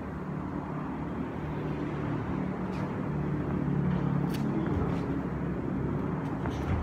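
A steady low hum that swells around the middle, with a few faint slaps from light Muay Thai sparring: kicks and footwork on the ring.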